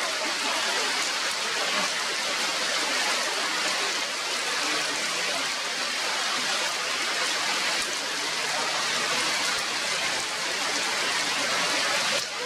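Steady rain falling on tree leaves, an even hiss.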